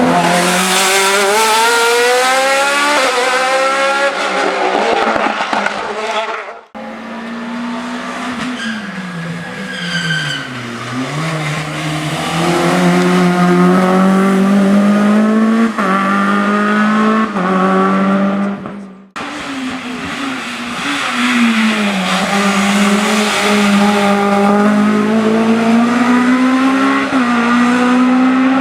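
Hill-climb race cars' engines running hard at high revs, pitch dipping and climbing again as they lift, change gear and accelerate through the course. The sound is in three shots, cut off abruptly twice, with a brief high whine from the car about ten seconds in.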